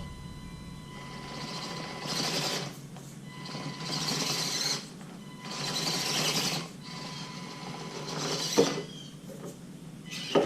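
Axial SCX24 1/24-scale RC crawler's small electric motor and gearbox whirring in three bursts of throttle as it tries to climb a steep incline and fails to make it. A sharp knock comes near the end.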